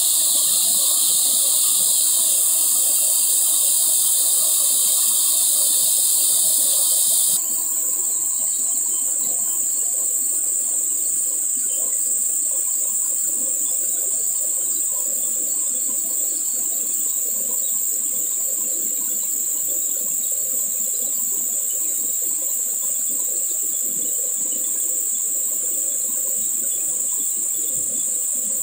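Waterfall rushing steadily under a loud, shrill insect chorus. The high drone changes abruptly about seven seconds in.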